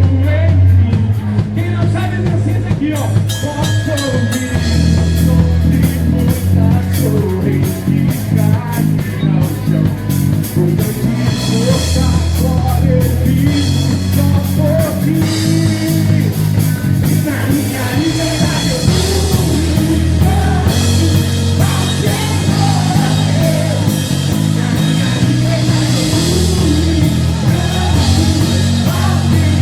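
Rock song with a singer over bass guitar and a drum kit, with cymbal hits heard most in the first few seconds.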